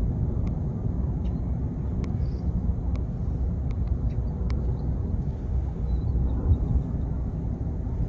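Steady low outdoor rumble with no distinct source, with a few faint sharp ticks scattered through it.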